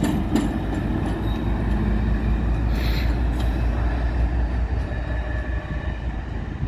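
Class 56 diesel-electric locomotive running light, its 16-cylinder diesel engine giving a steady low rumble as it pulls away across the pointwork, with a brief hiss about three seconds in.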